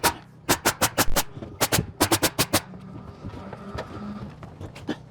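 Rapid nailing on the roof: about fourteen sharp strikes in quick clusters over roughly two and a half seconds, then it stops.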